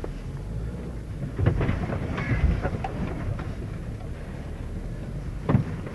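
Off-road 4x4 driving through muddy ruts and puddles, heard from inside the cab: a steady low engine and tyre rumble with mud and water splashing against the body and several jolting knocks from the ruts, the loudest near the end.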